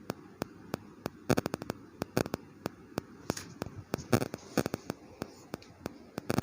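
A run of sharp, irregular clicks and knocks, some coming in quick clusters, as of hard objects being handled or tapped.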